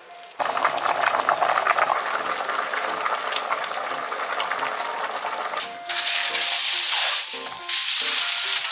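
Braised chicken bubbling and crackling in a cast-iron pot on a low simmer. About six seconds in, louder rustling and crinkling of aluminium foil in a few bursts as it is pressed over a tray.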